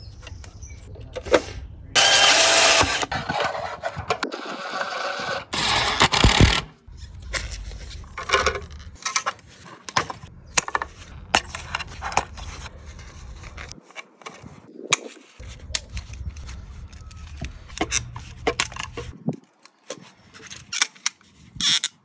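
Hand-work handling sounds from fitting an outdoor power socket: a run of small clicks, rattles and knocks from the plastic socket box, screws, screwdriver and cable. A loud burst of noise lasts about a second about two seconds in, with a shorter one about six seconds in.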